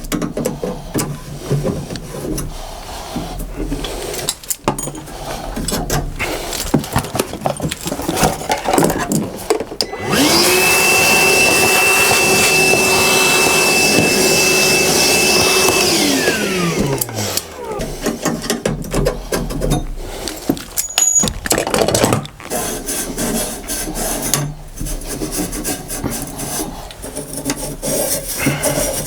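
A small electric motor, likely a power tool, runs at a steady pitch for about six seconds, then winds down with a falling whine. Before and after it come scraping and rubbing from hand work on tools and parts.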